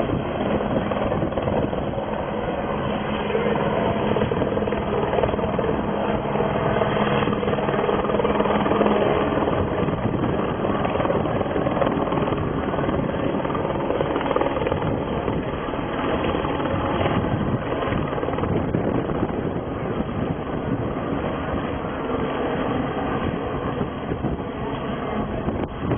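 Helicopter hovering low overhead, its rotor and engine running steadily, with a steady low hum that fades about nine seconds in.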